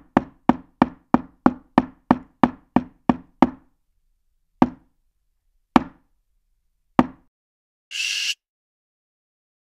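Sharp knocks, a quick even run of about three a second, then three slower knocks more than a second apart. A short burst of hiss comes near the end.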